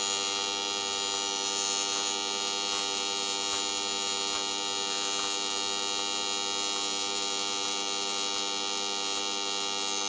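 TIG welding arc on an aluminum plate, buzzing steadily with an even electric hum of the AC arc, as a bead is laid over an existing weld.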